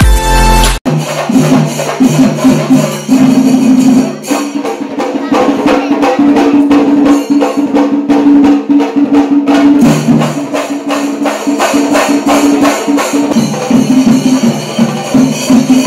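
Music: fast, dense percussion with jingling and clicking strokes over a held low melody line. A short low tone opens it and cuts off under a second in.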